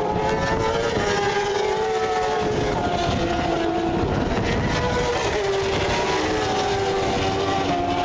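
Several racing motorcycle engines running at speed on the circuit, heard at once, their notes falling and rising in pitch as they shift and pass.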